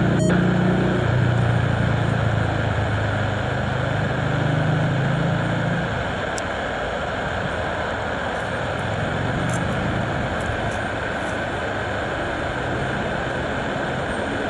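Saab 340A's twin turboprop engines and propellers running as the aircraft taxis after landing: a steady drone with a low propeller hum that drops away about six seconds in.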